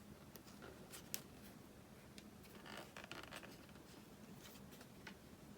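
Faint handling noises: a few light clicks in the first second, then a short scraping rustle about three seconds in, as small plastic and rubber parts are pressed together by hand.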